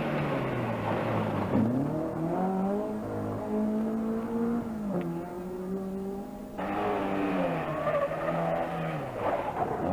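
Rally car engine at full stage pace. The revs fall, climb again about a second and a half in, step down with a gear change about five seconds in, and fall once more near the end, with a hissing road noise over the first and last parts.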